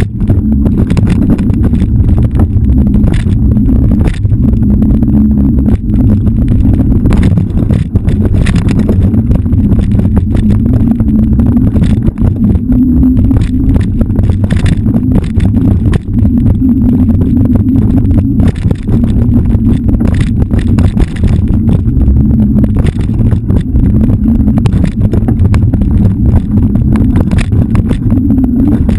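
Off-road motorcycle engine running hard on a rough trail, its note rising and falling with the throttle, with frequent knocks and rattles from the bumps.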